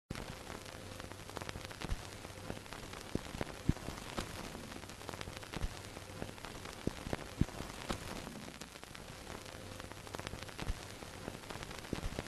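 Old-film crackle effect: a steady hiss scattered with irregular clicks and pops, like the surface noise of a worn film soundtrack or record.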